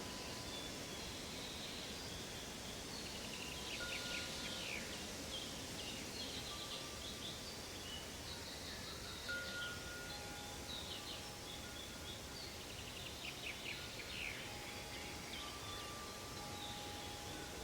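Produced fantasy forest ambience: birds chirping and trilling in quick bursts over a steady hiss, with long soft chime-like tones at several pitches sounding and fading.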